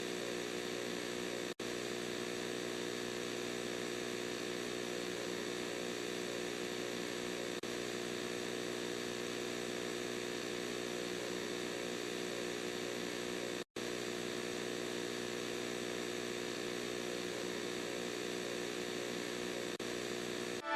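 A steady electronic droning hum made of many tones held at once, unchanging in pitch. It cuts out briefly twice, about a second and a half in and again about fourteen seconds in.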